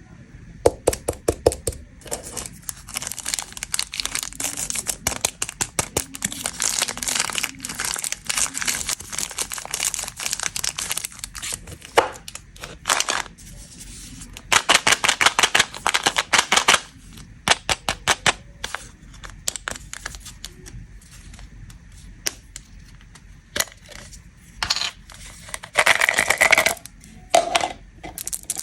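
Plastic snack and candy wrappers crinkling and tearing open, in bursts of rapid sharp crackles and clicks with short quieter pauses between.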